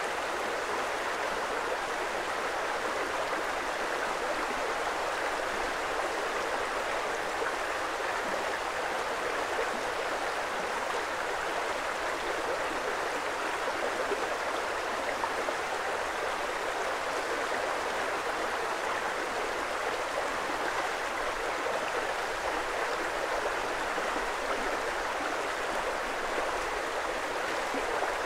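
Creek water flowing, a steady, unbroken rush.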